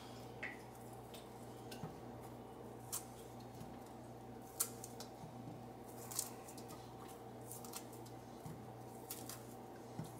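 Fresh strawberries being hulled by hand, their stems pinched off and the berries dropped into an empty stainless steel pot: scattered short, crisp clicks and taps, a couple of louder ones near the middle, over a faint steady hum.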